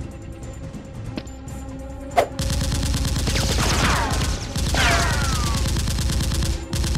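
Rapid automatic gunfire sound effects burst in about two seconds in and run on loud and fast, with falling ringing tones over them, after a quieter stretch of background music with a couple of sharp clicks.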